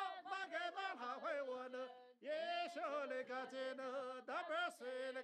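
A man singing unaccompanied in a chanting style, a traditional Nu song, holding and bending his notes with a short break about two seconds in.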